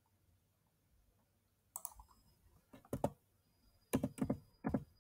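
Scattered clicks of a computer keyboard and mouse: quiet for the first two seconds, then short sharp clicks in small clusters of two or three.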